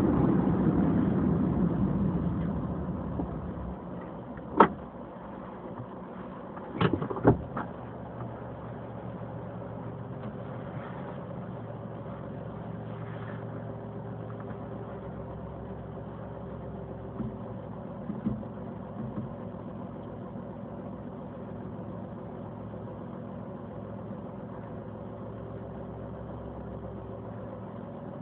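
A car heard from inside its cabin: road and tyre noise fading as the car slows to a stop, then the engine idling steadily while it waits. A few sharp clicks come about five and seven seconds in.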